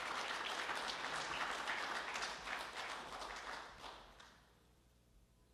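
A small audience applauding, the clapping dying away about four seconds in.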